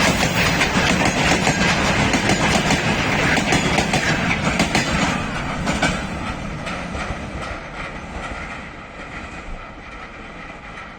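Railway wagons rolling past, their wheels clattering over the rail joints; the clatter fades away from about five seconds in as the train recedes.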